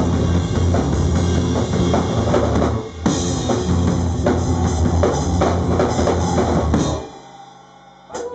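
Live rock band of drum kit and electric guitar playing loudly, then stopping abruptly about seven seconds in.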